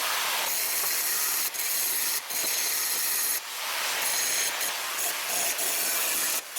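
Power sanding on a car door: a steady rasping hiss, broken by several short pauses.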